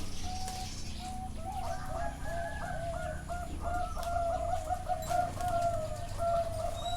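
Several zebra doves cooing at once, their short repeated notes overlapping in a continuous chorus.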